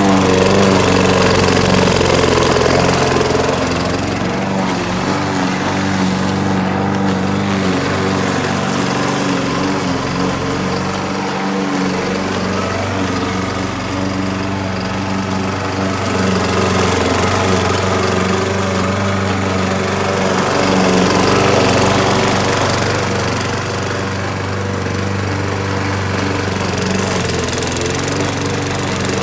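Craftsman gas push mower's small engine running steadily while cutting long, thick grass, its loudness rising and falling a little as it is pushed about.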